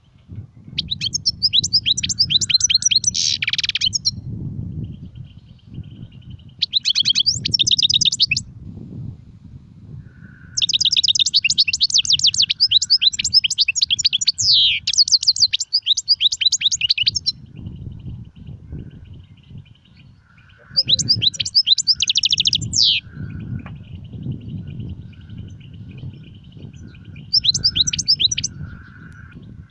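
European goldfinch singing in fast twittering phrases, five bursts lasting one to six seconds with short pauses between, the longest starting about ten seconds in; a faint thin note carries on in the pauses. A low rumble runs underneath.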